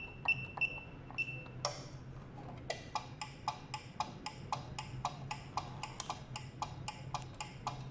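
Garage door keypad giving short high beeps as its buttons are pressed, then a steady run of sharp ticks, about three a second, as the code is entered and the opener is triggered.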